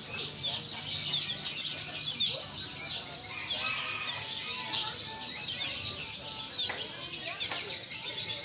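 Many small caged songbirds chirping and twittering at once, short overlapping calls with no break.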